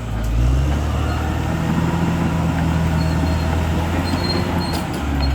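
CAT D6R XL bulldozer's diesel engine running, its pitch dipping briefly at the start and picking back up before holding steady.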